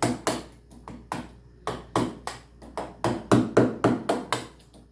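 A hammer striking an iced-up refrigerator over and over, about four sharp blows a second, with the heaviest blows a little past the middle. The refrigerator is choked with ice, which keeps its door from opening and closing, and needs defrosting.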